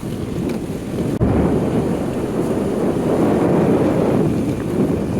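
Wind buffeting the microphone outdoors: a loud, steady low rumble that grows stronger about a second in.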